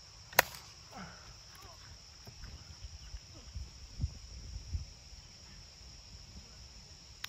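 A plastic wiffle bat strikes a wiffle ball once, a single sharp crack about half a second in. After it comes a steady high insect hum with a few low thumps.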